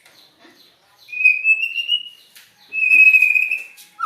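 White-rumped shama (murai batu) singing two long whistled notes, the first gliding slightly upward, with faint clicks between them.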